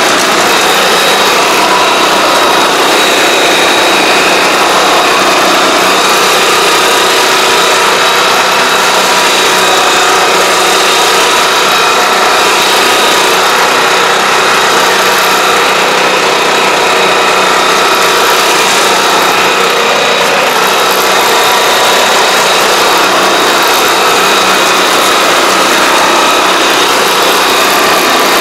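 Small engine of a ride-on pesticide sprayer running steadily while it drives the spray pump during spraying, with a steady high whine on top.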